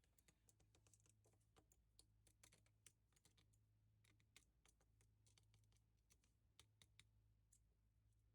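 Faint, irregular small clicks and taps of tools and small parts being handled while a smartphone is taken apart, over a low steady hum.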